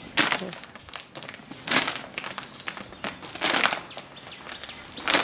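A homemade spray bottle made from a plastic hand-wash bottle being squeezed in four short hissing squirts, about one and a half seconds apart, with crackling of the plastic in between.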